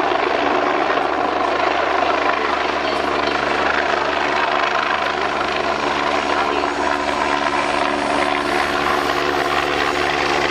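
BK-117 twin-turbine helicopter flying a display overhead: steady rotor and engine noise with a constant hum of tones, holding at an even level throughout.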